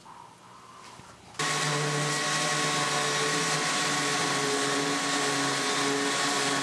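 Random orbital sander with a dust hose attached, running steadily on a pine board: a steady whine over a loud hiss. It starts abruptly about a second and a half in, after a quiet stretch.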